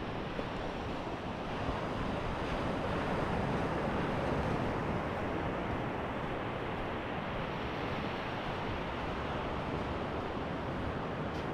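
Sea surf washing on the shore, a steady rushing that swells a little a few seconds in, with wind buffeting the microphone.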